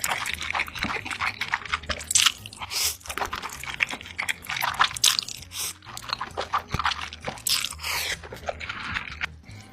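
Close-miked eating of crunchy food: bites and chewing with many sharp crunches and crackles.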